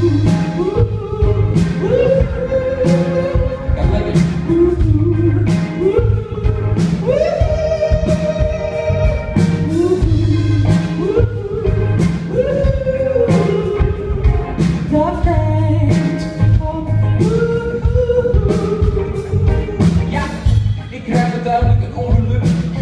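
Live band playing a song, with singing over a steady drum beat.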